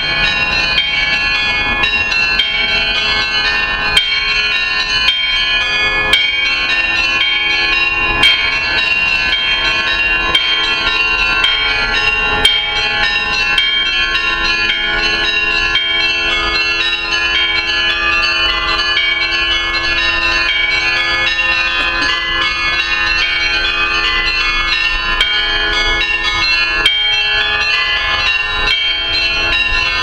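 Russian Orthodox church bells ringing a continuous festive peal: many bells struck in quick, overlapping succession, their tones ringing into one another, steady and loud.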